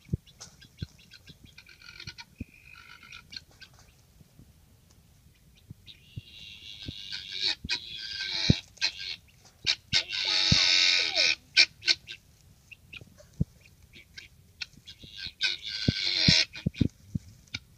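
Domestic guinea fowl calling in harsh, noisy spells, the longest and loudest about ten seconds in and another near the end, with short clicks in between.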